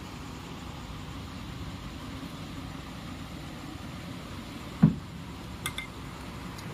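Steady low background rumble, with one dull thump about five seconds in and two faint clicks just after.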